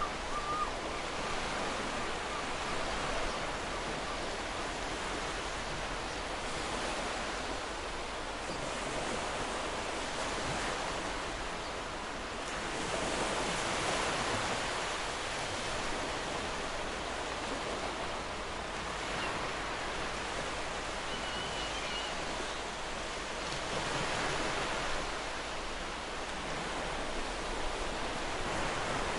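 Sea waves washing on a shore: a continuous wash of surf that swells louder now and then, most strongly about halfway through and again near the end. Two faint short chirps sit in the background, one right at the start and one about two-thirds through.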